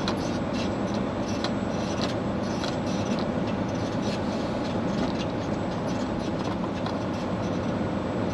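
Semi truck's diesel engine and drivetrain running at low speed, heard inside the cab as a steady rumble with irregular light rattles and ticks.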